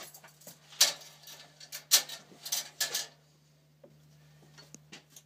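Metal objects clattering and clinking as they are handled and set down on a workbench: several sharp clanks with a brief metallic ring in the first three seconds, then a few light taps.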